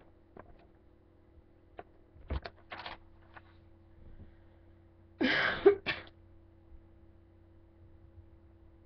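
Soft knocks and rustles from handling paper and a marker, then, about five seconds in, one short, loud breathy burst from the boy, like a sneeze. A steady low hum runs underneath.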